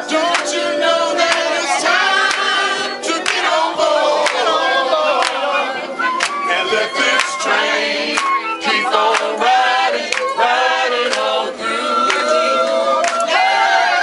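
A group of people singing together, with sharp hand claps scattered through.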